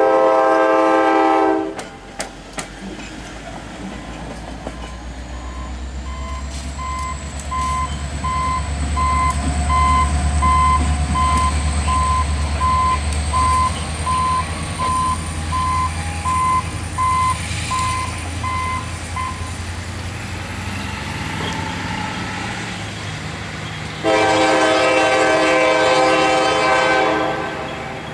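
A CSX EMD SD70M diesel locomotive's horn sounds a chord that cuts off about a second and a half in. Then the locomotive's diesel engine rumbles low as it approaches, with a bell dinging about one and a half times a second. Near the end the horn blows again for about three seconds.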